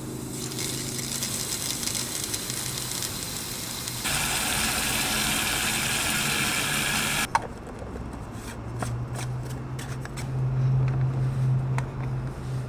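Water from a garden hose spray nozzle rushing into a black ABS pipe tank through its fill port, getting louder about four seconds in, then cut off sharply with a click about seven seconds in. After that, a low steady hum and small clicks and taps as the fill cap is handled.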